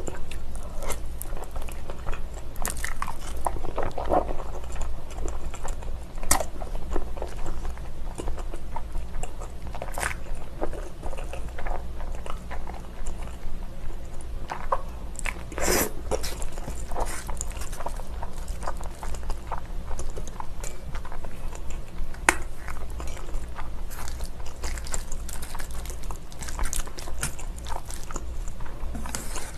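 Close-miked eating of spicy cold noodles thick with chili sauce: slurping and wet chewing with many small sharp clicks, the strongest slurp about halfway through, over a steady low hum.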